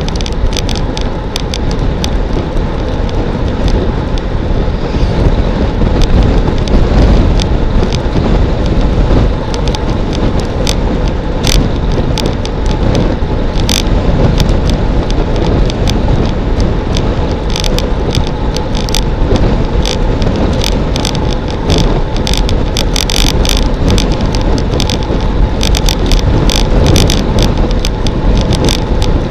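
Loud, steady wind noise on the microphone of a road bike descending at about 50–55 km/h, with road rumble underneath. Frequent irregular clicks and rattles are heard throughout.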